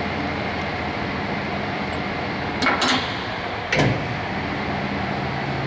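Hardinge HLV-H toolroom lathe with a steady machine hum. Two sharp clicks come about two and a half seconds in, then a louder clunk just before four seconds, as the spindle starts and the three-jaw chuck turns.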